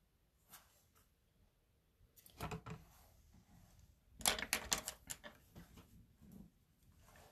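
Clicking and tapping of small makeup tools and containers being handled, in two clusters: a few clicks about two seconds in, then a busier run of clicks about four seconds in.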